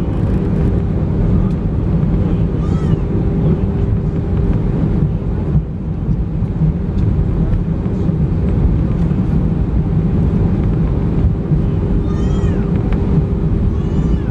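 Airbus A319 cabin noise as the airliner rolls along the runway after landing: a steady low rumble from the engines and wheels, with a constant hum. Short high squeaks that rise and fall in pitch come through briefly about three seconds in and again as a cluster near the end.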